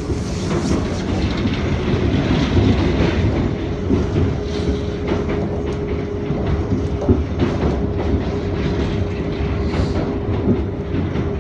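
Former Tokyu electric commuter train running along the track, heard on board: a steady rumble of wheels on rail with clicks over the rail joints and a steady hum.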